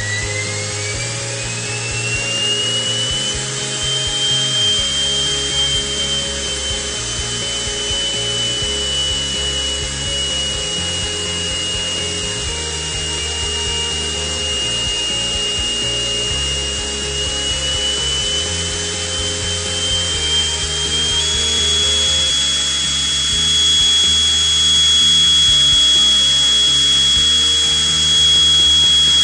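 Miniature 3D-printed metal turbine jet engine running: its high whine rises as it spools up over the first few seconds, holds steady, then climbs slightly in two steps near the end. Background music plays underneath.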